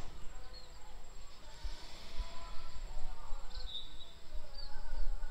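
Outdoor ambience: a steady high-pitched insect drone, with a few short bird chirps past the middle.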